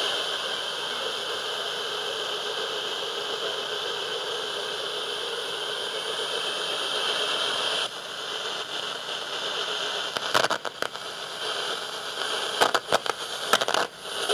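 AM/FM radio static between stations, a steady hiss that shifts about eight seconds in as the dial moves, with bursts of crackle and pops in the last few seconds.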